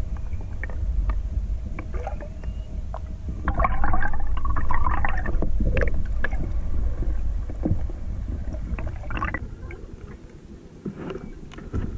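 Muffled underwater rumble and gurgling of river water around a submerged camera, with scattered clicks and a louder stretch about four to six seconds in. Near the end the rumble drops away, leaving a few knocks on a boat deck.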